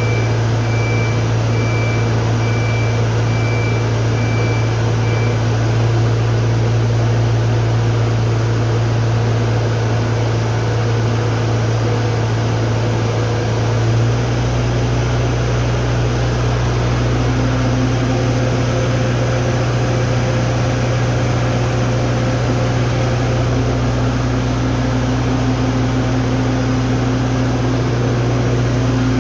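Heavy hydraulic machinery running with a steady low hum and a few fainter steady tones; the hum changes in tone about halfway through. A faint repeating high beep sounds for the first few seconds.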